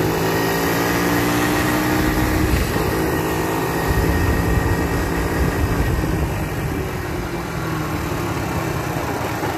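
Kazuma 50cc kids' ATV engine running while the quad rides along pavement, with rumble from the tyres and wind. The engine note holds steady, then falls about seven seconds in as it eases off.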